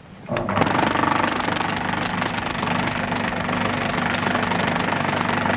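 A film editing machine playing back a cut of battle footage: a steady mechanical whirring rumble with a low hum that starts suddenly a moment in and holds even.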